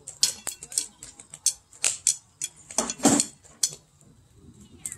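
Firewood burning in a metal fire pit, crackling with irregular sharp pops, and a louder, longer burst about three seconds in.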